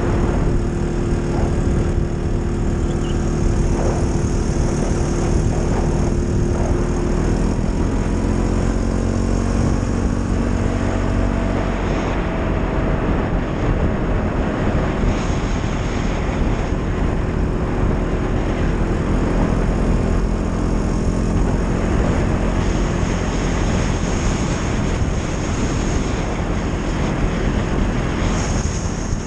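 ATV engine running steadily at riding speed, its pitch stepping up a little about a quarter of the way in and again a little later, over a constant rush of wind and tyre noise.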